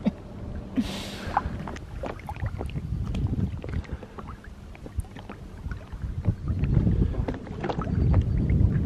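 Small boat moving on a lake: water splashing and lapping at the hull, with scattered knocks and clatter in the boat. Low rumble of wind on the microphone, growing louder in the last couple of seconds.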